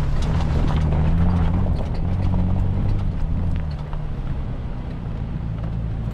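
Car engine running under way on a rough mountain road, with scattered clicks and knocks over the steady hum; the engine note shifts about two seconds in and gets quieter after about four seconds.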